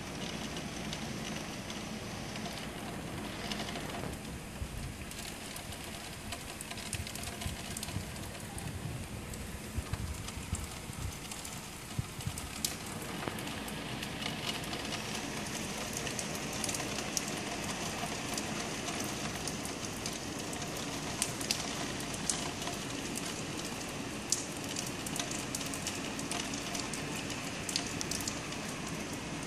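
Heavy rain falling steadily on roofs and pavement, a constant hiss with sharp drop ticks close by that grow more frequent from about halfway through.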